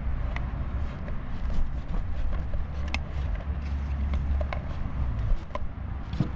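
Small clicks and taps of plastic and rubber parts being handled and pried apart on a car heater blower motor during disassembly, over a steady low rumble.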